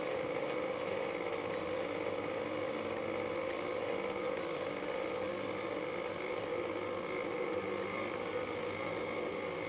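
KitchenAid stand mixer running steadily, its dough hook working a flour dough while lukewarm water is poured into the bowl.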